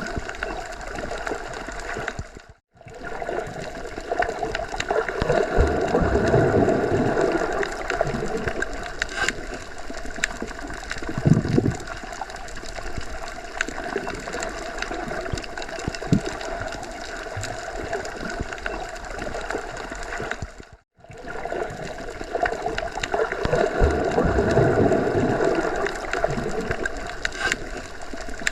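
Underwater ambience: a steady watery wash of bubbling and gurgling with a faint hum, swelling louder for a few seconds at a time and cutting out to silence for an instant twice, where the recording loops.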